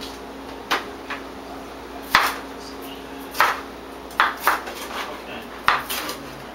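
Kitchenware clinking and knocking on a table, about eight sharp separate strikes at irregular intervals, some ringing briefly.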